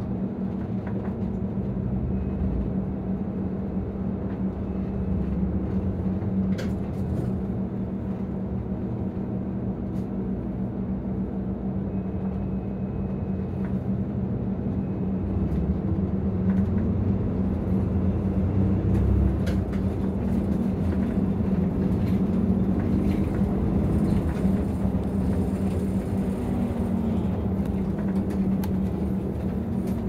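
Nissan Diesel ADG-RA273MAN city bus's diesel engine, heard from inside the passenger cabin, running steadily as the bus drives. The engine note rises and falls in the second half, and a few faint clicks and knocks from the cabin are scattered through.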